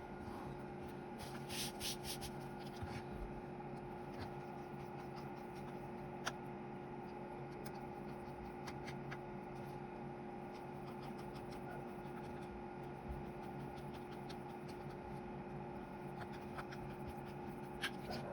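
Faint scraping and light clicks of a small screwdriver turning screws into the plastic case of a handheld radio, over a steady background hum.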